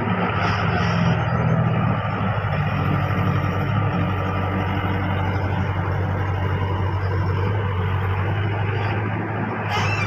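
Wheeled mini excavator's diesel engine running steadily as the machine digs, a low continuous hum with a fuller, busier note during the first few seconds.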